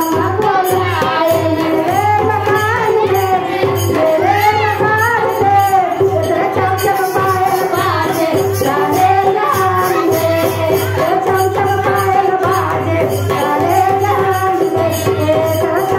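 Bhojpuri Shiv charcha devotional song: a singing voice over a steady drum beat and jingling hand percussion.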